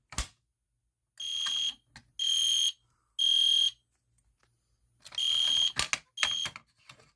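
A pull station's handle clicks. Then a fire alarm horn, muffled by tape inside it, gives three high blasts of about half a second each in the temporal code-3 pattern. After a pause, a second round starts and cuts off after its second, shorter blast.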